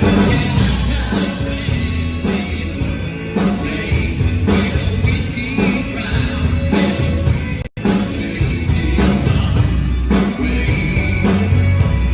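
Country song with a singer and a steady bass beat played over loudspeakers, dropping out for an instant about two-thirds of the way through.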